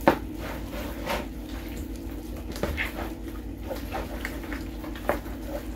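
Hands squishing and turning raw skin-on chicken thighs in their juice and seasoning in a plastic tub: irregular wet squelches and small knocks against the tub, over a steady low hum.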